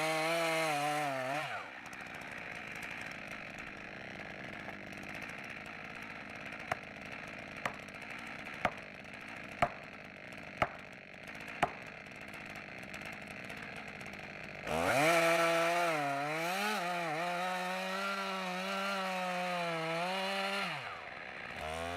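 Chainsaw running at high revs, its pitch wavering as it cuts, dropping away about two seconds in. Then a quieter stretch with six sharp knocks about a second apart, before the chainsaw revs up and cuts again for the last several seconds.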